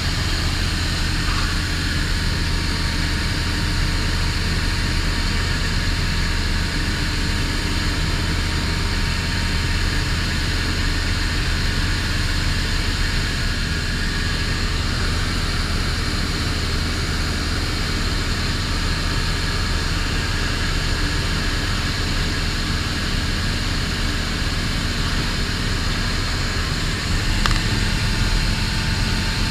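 Zenith STOL CH 750 light aircraft's piston engine and propeller running steadily in flight, a constant drone with no change in pitch.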